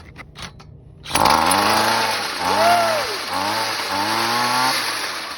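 Gas ice auger engine turned over by a cordless drill on its flywheel nut, clattering for about a second before it catches. It then runs with its revs rising and falling in a few swells, easing off near the end.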